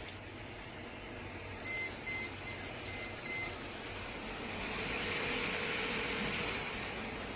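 An electronic beeper sounds about five short, evenly spaced beeps. About four and a half seconds in, a steady hiss rises and then fades.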